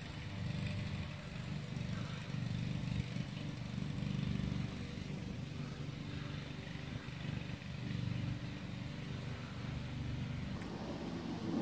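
Steady low rumble of a vehicle running, shifting in tone near the end.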